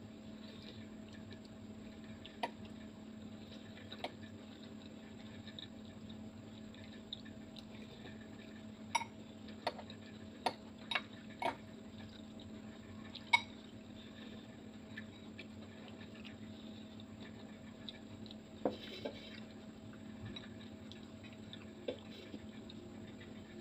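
Metal fork clinking and tapping against a ceramic bowl of noodles while eating: about ten sharp clinks, most bunched together near the middle, over a steady low hum.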